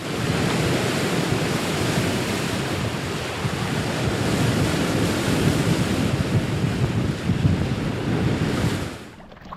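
Wind buffeting the microphone over open sea, a steady loud rush mixed with the wash of the water, which falls away near the end.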